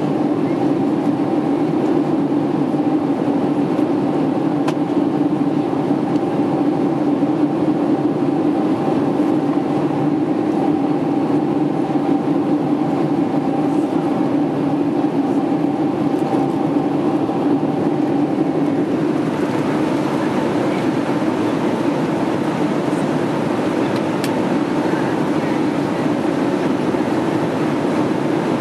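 Steady cabin noise of a Boeing 767 airliner in flight: a constant engine drone and airflow rush heard by the window over the wing. A faint steady hum within it fades about two-thirds of the way through.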